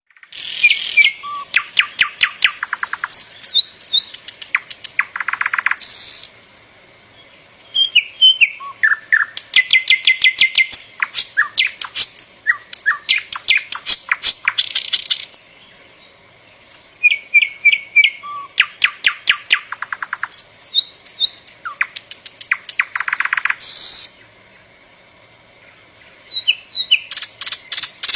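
Northern mockingbird singing: a long run of varied phrases, each note or trill repeated several times before it switches to a new one. The song breaks off twice for a couple of seconds, about a quarter of the way in and again near the end.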